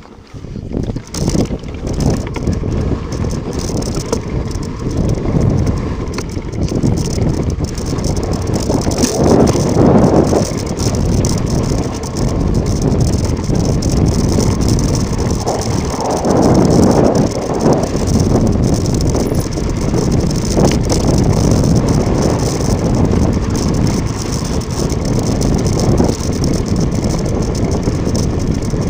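Mountain bike descending fast over loose volcanic ground: wind rushing over the microphone mixed with tyre noise and the bike rattling, swelling louder twice along the way.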